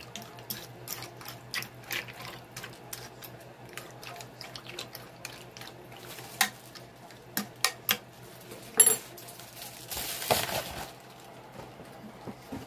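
A utensil clicking and scraping against a baking dish while spreading dried au gratin potato slices evenly through thick cheese sauce, with small wet stirring sounds. A sharper clack comes near nine seconds in, and a longer scraping rush about ten seconds in.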